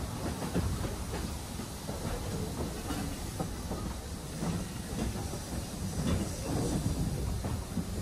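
Steam-hauled train of passenger coaches running along the track: a steady low rumble with wheels clicking over the rail joints, heard from an open carriage window.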